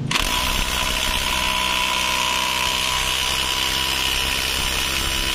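Cordless impact wrench hammering steadily on a scooter's CVT primary pulley nut without breaking it loose: the nut is over-torqued and the impact wrench isn't strong enough for it.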